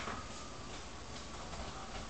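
Quiet room tone: a faint, steady hiss with no distinct sound event.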